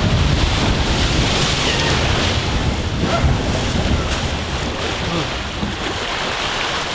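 Log flume boat rushing through water, with water splashing and churning and wind buffeting the microphone. It is a loud, steady rush that slowly fades.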